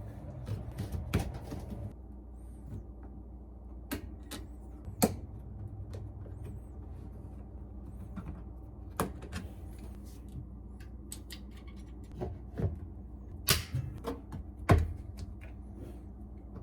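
Scattered sharp clicks and knocks of plastic and metal parts being handled as a washing machine is put back together after its clogged drain pump was cleared, over a low steady hum.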